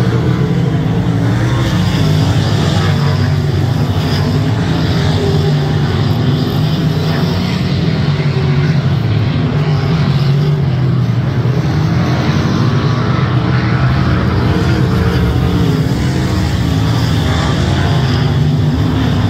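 Several winged sprint car engines running at racing speed at once, loud and steady.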